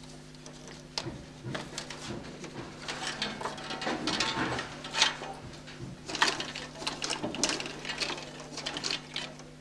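35 mm film projector mechanism clattering and clicking over a steady electrical hum. The clatter starts about a second in and grows busier and louder through the middle.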